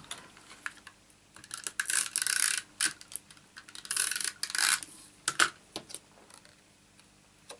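Stampin' Up! Snail adhesive tape runner drawn across cardstock in two strokes of about a second each, a rasping rub. Light clicks and taps of paper pieces and tools being handled between the strokes.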